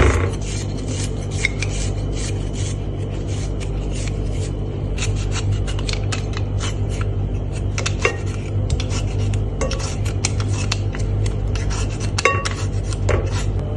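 Repeated short rasping scrapes of a kitchen utensil working food, several strokes a second, with an occasional ringing clink of metal or crockery.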